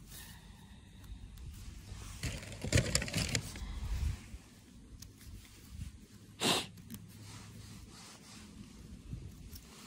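Rustling and scraping as mushrooms are handled and their stems trimmed with a small mushroom knife, loudest about two to four seconds in, with one brief sharp scrape about six and a half seconds in.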